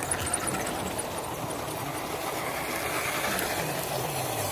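Small electric motors and gearboxes of 1/12-scale RC crawlers whirring as the trucks crawl over loose river stones, with the clatter of tyres on rock. A faint whine rises in pitch around the middle.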